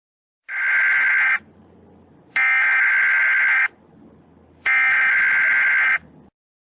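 Emergency Alert System SAME header tones: three harsh, warbling data bursts of about a second each, a second apart. This is the digital code that opens an emergency alert broadcast.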